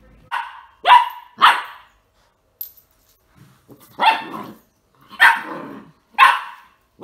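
Whippet puppy giving short, sharp play barks. Three come quickly, then after a pause three more about a second apart.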